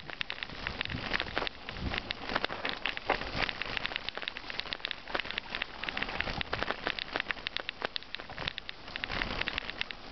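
Mountain bike tyres rolling over a loose gravel track: a dense, continuous crackle of small stones popping and crunching.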